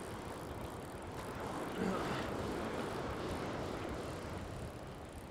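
Small surf waves washing up the sand in a steady rush. One wave swells louder about two seconds in, then eases.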